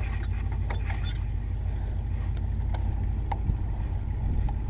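A steady low rumble of wind on the microphone, with a few faint clicks as a truck's manual transmission gear shift lever is worked by hand. The lever moves so freely that it seems to slip between gears without engaging.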